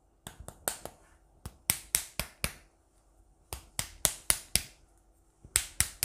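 Small tube of glitter eyeliner being shaken and handled: sharp plastic clicks in four quick groups of four or five.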